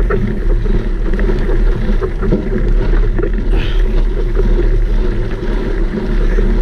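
Wind buffeting the microphone while riding a mountain bike, a loud steady rumble with small rattles and knocks from the bike over rough ground.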